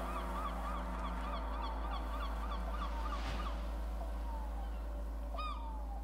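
Gulls calling: a fast run of short repeated cries, then a few longer, falling calls near the end, over a steady low drone.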